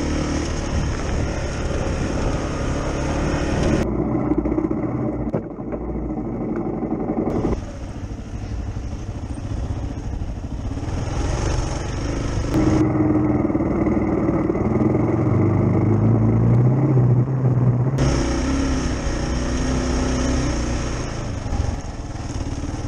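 Kawasaki KLR 650 single-cylinder four-stroke engine running under way on a loose dirt track, heard from the rider's position; its note rises and falls as the throttle opens and closes. A high hiss drops out twice, from about four to seven seconds in and from about thirteen to eighteen seconds in.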